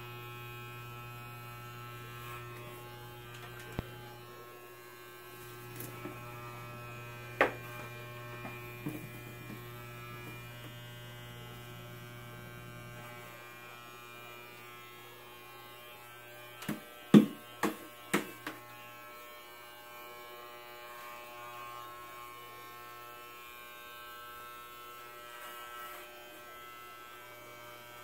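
Corded electric hair clippers buzzing steadily as they run through a child's hair. A few sharp knocks break in, the loudest a quick cluster of four or five about two-thirds of the way through.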